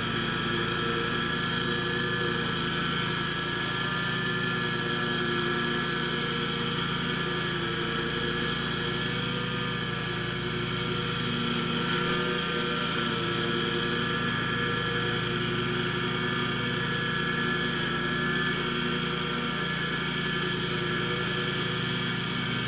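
Scag zero-turn mower's engine running steadily at a constant speed, its hum holding one pitch with only slight wavering.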